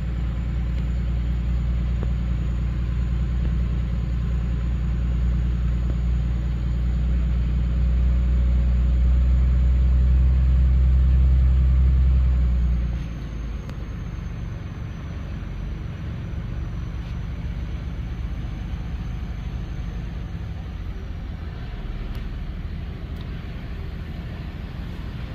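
A truck engine heard from inside the cab while driving, a low rumble that builds steadily for about twelve seconds, then drops suddenly to a quieter, steadier running sound as the driver eases off.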